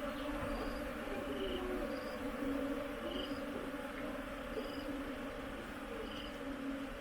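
Bees buzzing steadily around the hive, with short high chirps repeating every second or so over the hum.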